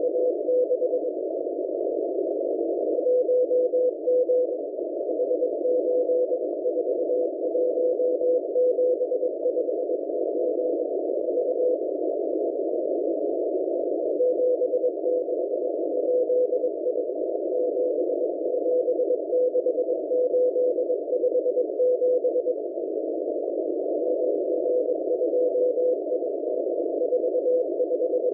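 Morse code from the M01 numbers station on a shortwave receiver: a single mid-pitched tone keyed in dots and dashes, in groups with short pauses between them, over steady static squeezed into a narrow band by the receiver's CW filter.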